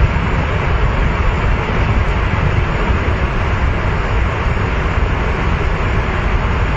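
A river in flood after a dam burst: a loud, steady rush of fast-moving water.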